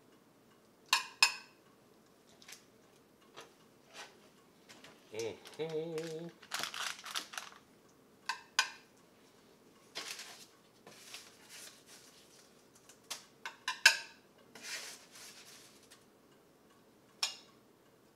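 Metal utensils clinking and scraping against a ceramic plate and baking trays while food is dished up. A few sharp, ringing clinks stand out, the loudest about a second in and again near the fourteen-second mark, between softer scrapes.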